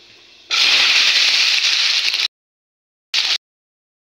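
Diced potatoes and green chillies hitting hot oil in a kadai, a loud sizzle breaking out about half a second in. The sizzle cuts off abruptly to silence, then returns twice in short bursts.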